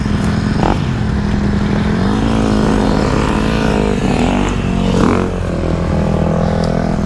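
Small 125 cc single-cylinder four-stroke motorcycle engine running under throttle while riding on dirt, its pitch climbing about two seconds in and then rising and falling with the throttle.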